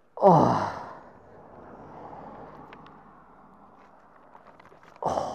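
A man groaning in pain: a loud cry that falls in pitch, then a quieter stretch of hard breathing, and a second short groan near the end.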